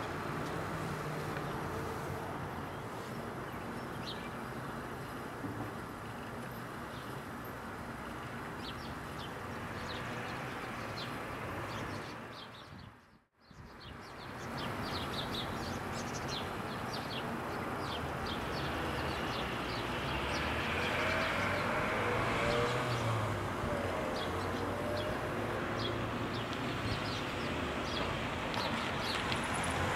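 Outdoor street ambience: a steady background hum with many short, high bird chirps. The sound drops out briefly about halfway through, and near the end a car can be heard approaching.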